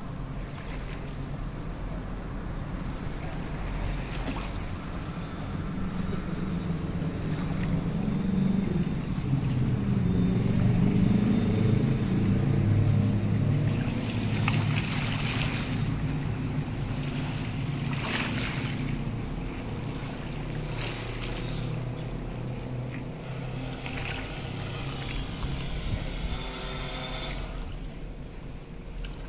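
Boat motor droning with a low hum of several steady pitches that swells toward the middle and then fades, over lapping water.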